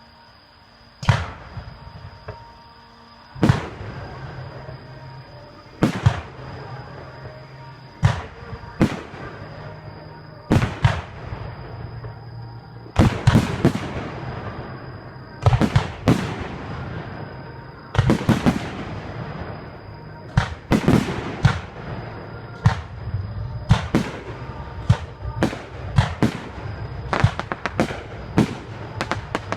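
Aerial fireworks shells bursting in a string of sharp booms. They start about a second in, a few seconds apart, then come faster, about one a second near the end.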